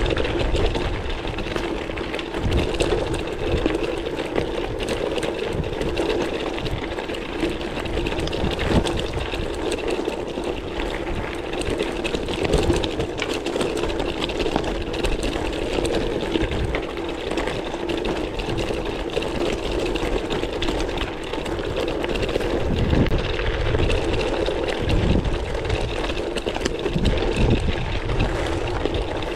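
Specialized gravel bike rolling over a loose, rocky gravel track: tyres crunching on stones and the frame and parts rattling in a steady, dense chatter, with an uneven low rumble underneath.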